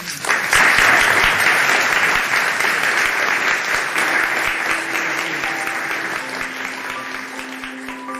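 Lecture audience applauding, starting just after the talk ends and slowly fading. About four seconds in, a few held notes of plucked-string outro music come in under the applause.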